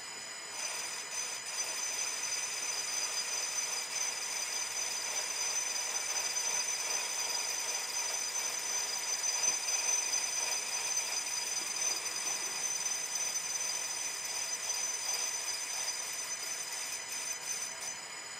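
Myford lathe running with a steady high-pitched whine while a turning tool cuts a small chamfer on a miniature petrol-engine piston; the cut begins about half a second in and eases off near the end.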